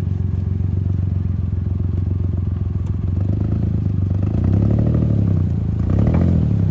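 Suzuki Jimny engine running steadily, revved up and back down twice in the second half.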